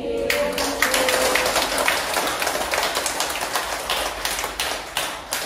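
Several people applauding with quick, irregular claps.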